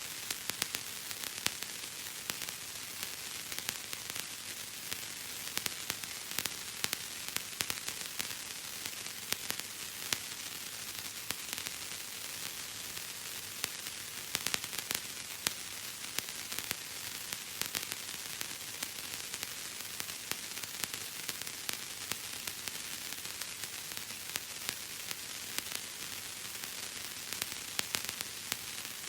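Bubble wrap being popped: many small, irregular pops crackling several times a second over a steady hiss.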